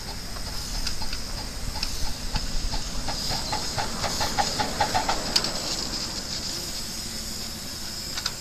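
Ride-on live-steam miniature locomotive pulling away: a steady hiss of steam with a run of quick exhaust chuffs, about three to four a second, through the middle, then dying down.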